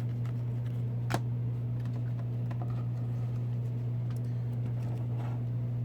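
Light clicks and taps of hockey trading cards being handled and set down, with one sharper click about a second in, over a steady low electrical hum.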